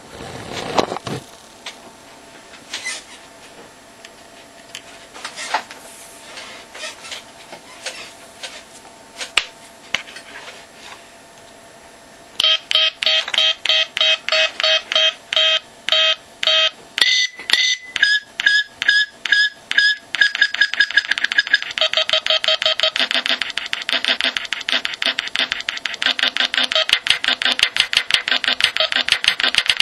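Electronic sample from a Winbond ISD1420 sound chip, played through a small 8-ohm speaker. About twelve seconds in it starts stuttering in quick, even repeats. The repeats come faster and denser, with the pitch shifting, from about twenty seconds on, as breath pressure on the pressure sensor drives the playback rate up. Before the sample starts there are scattered clicks of the circuit being plugged in and handled.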